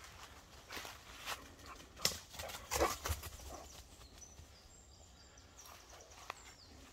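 Footsteps in a thick layer of dry fallen leaves, several uneven crunching steps in the first half, then quieter.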